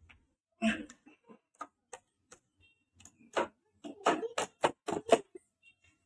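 Irregular clicks and knocks of a plug and switches being handled at a socket board, sparse at first and coming thicker about four seconds in.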